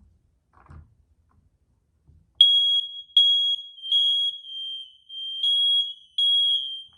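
Hardwired smoke alarm sounding its test alarm after its test button is pressed with a broomstick: a couple of faint knocks, then loud, piercing high-pitched beeps about three-quarters of a second apart starting about two and a half seconds in. The other interconnected alarms in the house join in a little lower in pitch and out of step with it.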